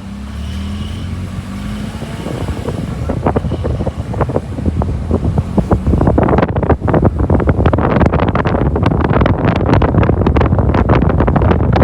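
A car pulls away: engine and road noise at first, then wind buffeting the microphone. The buffeting builds from about two seconds in and is heavy and gusty through the second half.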